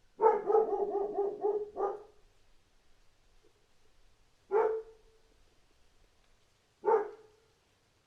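A dog barking: a quick run of about seven barks in the first two seconds, then two single barks a couple of seconds apart.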